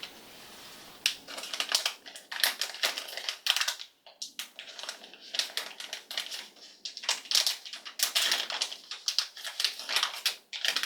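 A toy surprise blind bag being torn open and crinkled in the hands, a fast irregular run of crackles.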